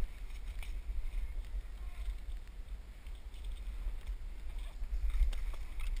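Footsteps and brushing through dry leaves and undergrowth, with scattered crunches and snaps, over a low rumble from movement of the worn camera.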